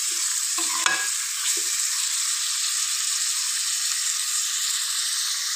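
Raw chicken pieces sizzling in hot oil with fried onion and garlic in a metal pot, being browned at the start of an aloo gosht curry. A spoon stirs them, with a few clicks against the pot in the first two seconds.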